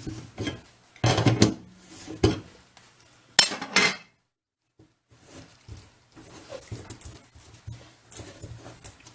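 Metal tools and parts clanking and clinking at a kitchen sink as a drain repair gets under way. A few sharp clanks come in the first four seconds, then a short dead gap, then lighter clicks and rattling.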